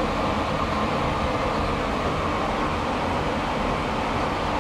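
Steady rumbling background noise of an underground metro station, heard from an elevator standing open onto the station hall.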